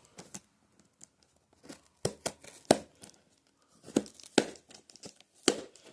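Toy packaging being handled and torn open: a string of separate sharp crackles and rips, a few seconds apart.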